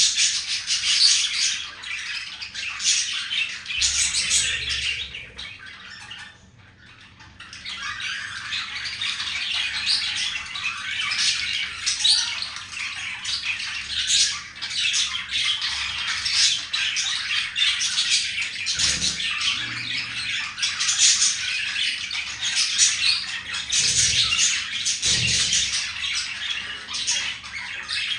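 Budgerigars chattering and warbling almost without a break, a male's courtship chatter directed at a female. There is a short lull about six seconds in.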